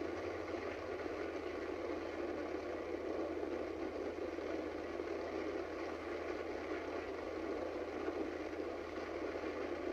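Steady rushing roar of freefall wind during a tandem skydive, heard through a TV speaker and re-recorded, so it comes out muffled and even without changing.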